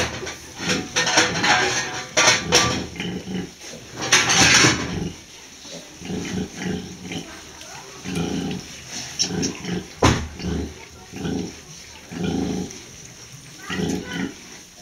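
A sow grunting in a steady rhythm, about two short low grunts a second, while her litter of piglets suckles: the rhythmic nursing grunt of a sow feeding her young. The first four or five seconds are louder and harsher.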